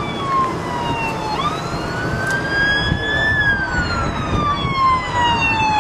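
A siren wailing in slow cycles of a little over four seconds. Its pitch falls slowly, sweeps back up, then falls slowly again, and starts to climb once more near the end.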